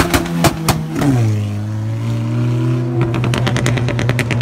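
Volkswagen Golf GTI's turbocharged four-cylinder pulling away with several sharp exhaust pops, its engine note then dropping and settling to a steady drone. About three seconds in, a fast run of even crackles starts over the engine note.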